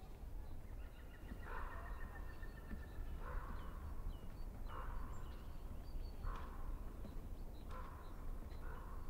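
Slow footsteps going down snow-dusted wooden stair treads, a crunching scuff about every second and a half. Faint short, high bird chirps sound now and then.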